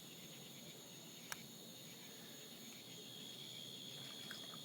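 Crickets chirring steadily in a faint, continuous high-pitched chorus, with one short click about a second in.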